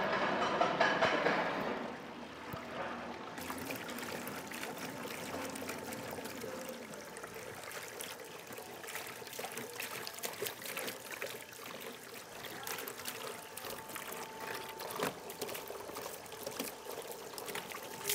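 Small tiered garden fountain: water pouring from a spout into a stone basin and trickling on steadily. The first two seconds are louder.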